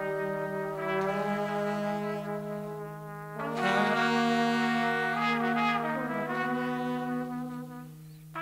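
Horn section of a nine-piece jazz ensemble (trumpets, trombone and saxophones) playing long sustained chords over a steady low note. The chord changes about a second in, swells louder at about three and a half seconds, and thins out and drops away near the end.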